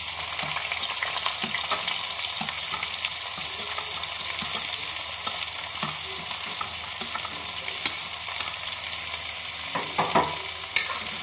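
Sliced onions dropped into hot mustard oil in a kadhai, sizzling and frying with a steady hiss that starts suddenly as they go in. A few sharp clicks near the end.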